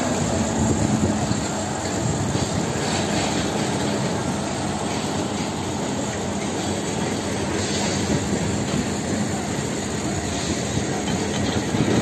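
Truck-mounted concrete pump running under load as it pumps concrete fed from a ready-mix truck: a steady, heavy machinery noise with faint irregular knocks.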